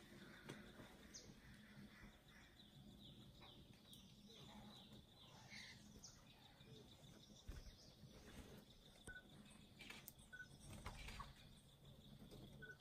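Faint forest ambience: scattered distant bird chirps and calls, with three short clear whistled notes in the second half, over a steady thin high tone.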